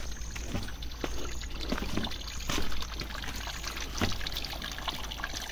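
Natural spring water trickling and pouring steadily, with scattered light clicks and knocks.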